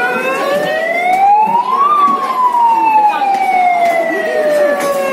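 Fire-truck siren wailing: one slow rise in pitch that peaks about two seconds in, then a long slow fall.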